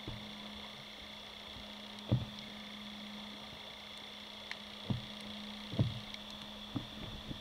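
Underwater ambience: a steady low hum with a faint high whine, broken by a few short, dull low thumps.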